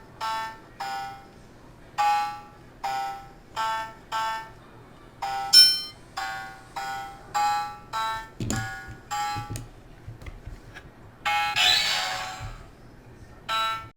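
Handheld DIY electronic memory game (Simon-style kit) beeping through its small buzzer: a run of short tones at a few different pitches, about two a second, as buttons light up and are pressed. A few light clicks follow, then a longer, rougher buzzing tone about eleven and a half seconds in, and one more beep near the end.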